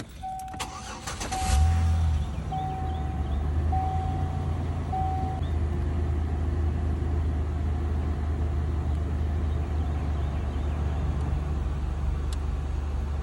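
Five short, evenly spaced dashboard warning chimes, while a 2010 Chevy Impala's V6 is cranked, catches about a second and a half in, and settles into a steady idle. This is the first start after a new coolant temperature sensor has been fitted.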